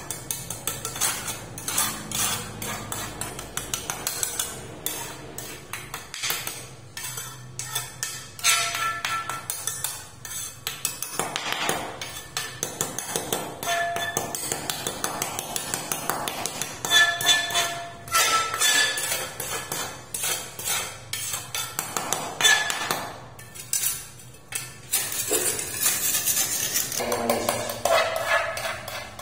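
Steel pointing trowel scraping and clinking on ceramic floor tiles in quick repeated strokes, as it works cement paste into the tile joints.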